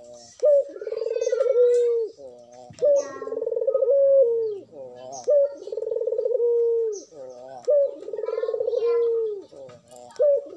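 Collared dove (Indonesian 'puter') cooing over and over in its cage. Each call is a short sharp note followed by a long trilled coo, repeating about every two and a half seconds, four full calls with a fifth starting near the end. Fainter high chirps sound between the coos.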